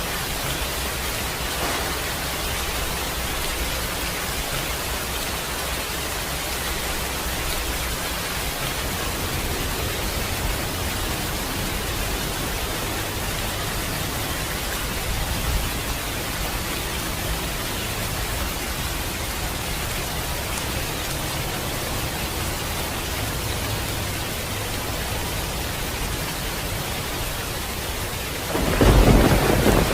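Steady rain falling, with a deep rumble of thunder breaking in loudly near the end.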